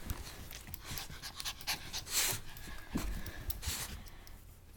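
A small dog panting, with a few short light clicks.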